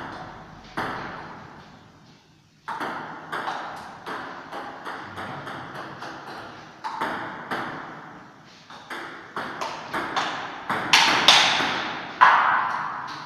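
Table tennis rallies: a celluloid ball is struck back and forth, making quick sharp clicks on the bats and the table, each with a short echo off the room's hard walls and floor. There is a brief pause about two seconds in, and a few louder hits come near the end.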